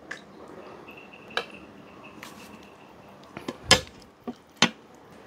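A metal spoon clinking and knocking against a ceramic plate: a few scattered sharp clicks, the two loudest near the end.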